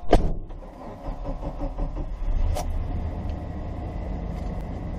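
A heavy thump in the cab of a 1989 Chevrolet K1500 pickup, then the truck's engine comes up to a steady low idle about two seconds in.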